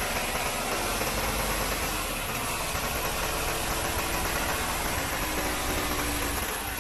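Isuzu Giga truck's 6UZ1 inline-six diesel engine idling steadily, heard up close in the open engine bay.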